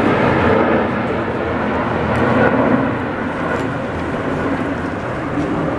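Steady outdoor city ambience: a constant low rumble with the voices of people nearby mixed in.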